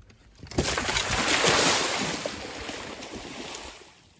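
An alligator plunging off the bank into a pond with a sudden splash about half a second in, followed by a rush of churning water that dies away over the next few seconds.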